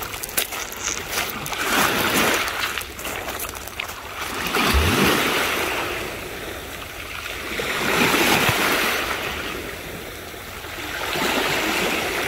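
Sea water washing around a kayak, swelling and fading about every three seconds, with a few light knocks in the first seconds and a dull thump about five seconds in.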